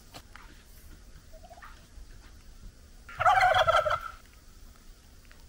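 Domestic white turkey gobbling once: a loud, rapid, warbling burst lasting about a second, a little past halfway through. A faint short call comes about a second and a half in.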